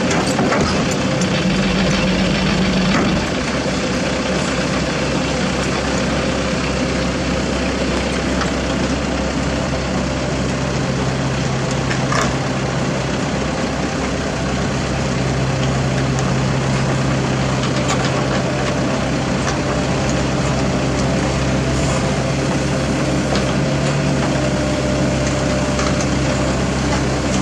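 Diesel engine of a CAT 305.5E2 mini excavator running steadily as the machine drives up to and onto a truck's loading ramps; the engine note gets a little louder about halfway through.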